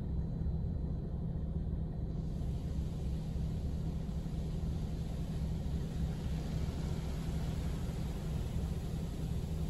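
Belanger Vector car wash spraying water onto the car, heard from inside the cabin: a hiss that starts about two seconds in and builds, over a steady low rumble.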